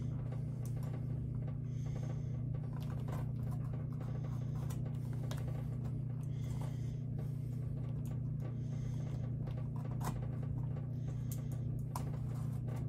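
Utility knife scraping and cutting through damp leather in short strokes, with a few sharp clicks. A steady low hum runs underneath throughout.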